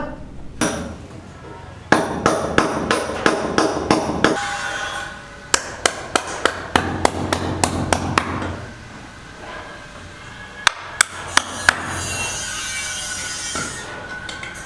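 Repeated hammer blows in several runs of sharp strikes, about three a second, over background music.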